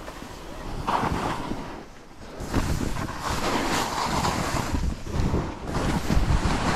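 Skis sliding and turning through snow, a rushing, scraping hiss with wind buffeting the microphone. It grows louder about two and a half seconds in.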